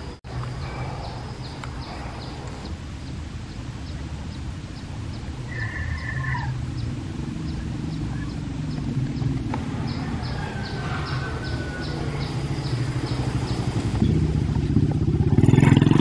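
Motorcycle engine running and growing louder, loudest near the end as it passes close across the rails. A faint row of regular high ticks runs beneath it, with a brief high tone about six seconds in.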